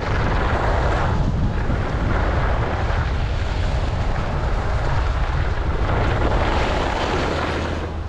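Wind buffeting the microphone while skiing downhill, a steady low rumble, with skis hissing and scraping over packed snow that swells during turns about a second in and again toward the end, easing off as the skier slows.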